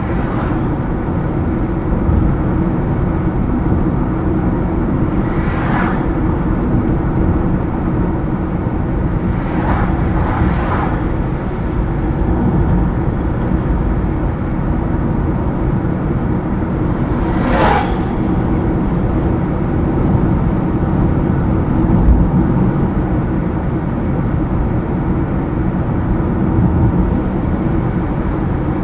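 A car driving at road speed on a highway: steady tyre and engine rumble, with four brief whooshes of passing traffic, about 6, 10, 11 and 18 seconds in.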